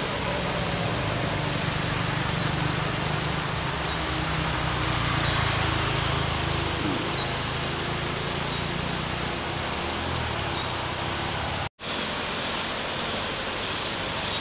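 Diesel engines of heavily loaded trucks running under load as they climb a steep grade: a steady low drone with road noise. The sound drops out for a moment near the end.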